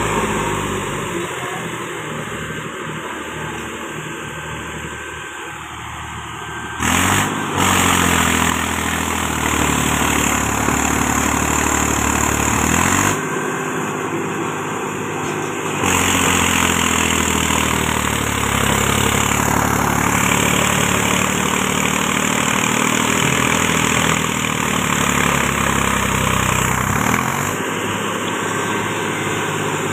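Mahindra 275 DI tractor's three-cylinder diesel engine running while pulling a mud-loaded trailer through mud. The engine note changes abruptly several times.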